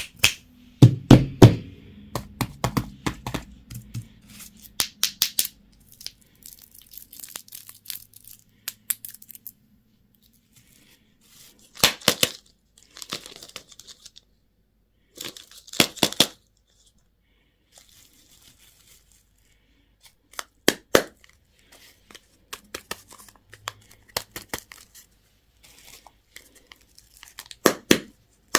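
Candy wrappers being torn open and crinkled by hand in irregular bursts of sharp crackles, with quiet pauses between the bursts.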